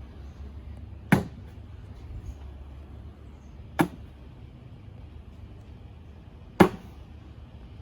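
Three cornhole bean bags landing on the board one after another, each a short sharp thud, about two and a half seconds apart.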